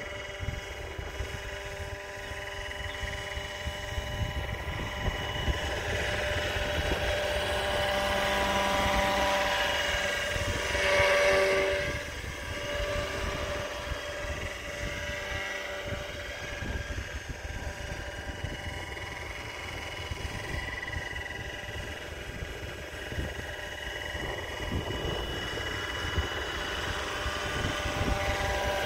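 Radio-controlled Roban AS350 Squirrel scale helicopter in flight: a steady whine of the rotors and drivetrain made of several tones, bending in pitch as the model moves and swelling loudest as it passes close about eleven seconds in. Wind rumbles on the microphone underneath.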